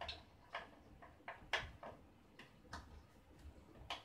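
Light, irregular clicks and taps of a RAM stick being pushed into a motherboard memory slot, with its plastic retaining clips, inside an open PC case; about ten small clicks in four seconds.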